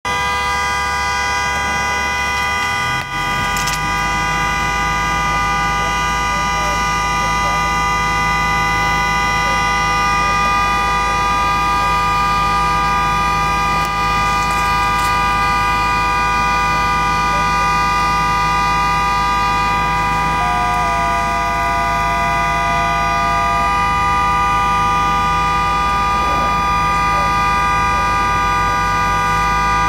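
A vehicle horn sounding one steady, unbroken chord without a pause, over a low engine rumble that steps up about three seconds in.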